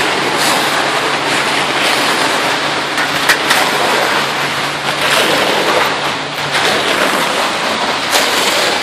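Wet concrete rushing down a metal chute and pouring into sidewalk forms: a steady, rough rushing noise, with a few short scrapes, the sharpest about three seconds in. A low steady hum runs beneath it for the first six seconds or so.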